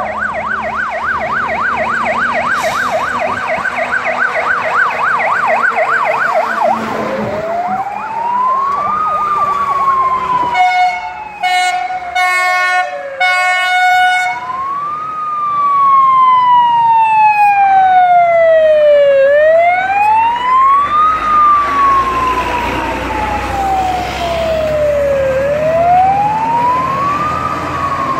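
Fire engine sirens: a fast warbling yelp for the first several seconds, then a slow wail rising and falling about every six seconds. Around eleven seconds in, a run of short horn blasts, and later a second siren sweeps alongside the wail.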